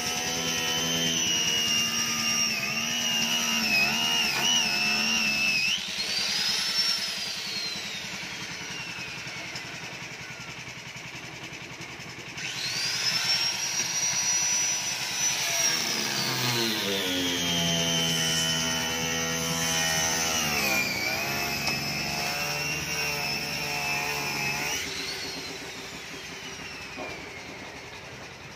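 A handheld electric power tool of the grinder or sander kind runs with a high whine, its pitch sagging as it bites into the work. About six seconds in it is switched off and spins down with a falling whine. It starts again near the middle and spins down once more near the end.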